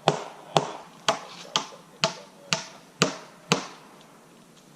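A hammer driving a nail into wood with about two strikes a second, eight in all, each a sharp ringing knock; the hammering stops about three and a half seconds in.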